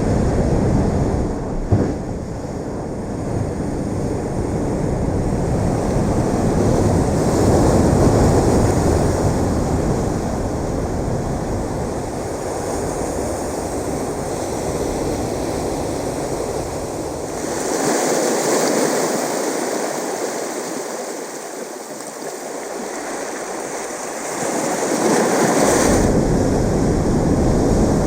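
Ocean waves surging and washing onto the shore, a continuous rush of surf that swells and eases. About two-thirds of the way in the deep rumble drops out for several seconds, leaving a brighter hiss, and comes back near the end.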